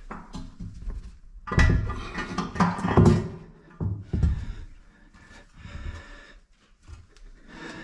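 Irregular knocks, scrapes and handling noises, loudest about one and a half to three seconds in, then fainter and scattered.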